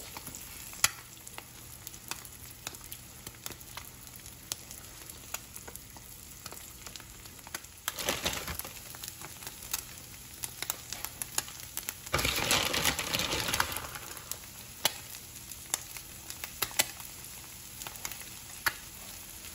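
Goose egg frying in oil in a nonstick skillet: a steady sizzle with scattered crackles and pops. It gets noticeably louder twice, briefly about eight seconds in and for a couple of seconds about twelve seconds in.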